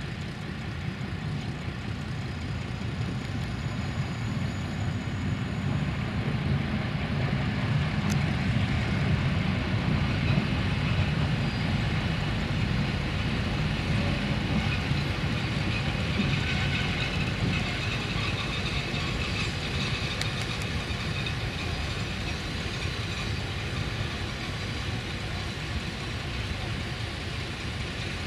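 Freight train wagons rolling along the track: a steady rumble of wheels on rails that swells about a third of the way in and eases off slightly near the end.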